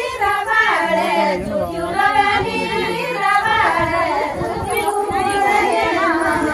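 A group of women singing a Garhwali folk song together, many voices holding long notes in unison.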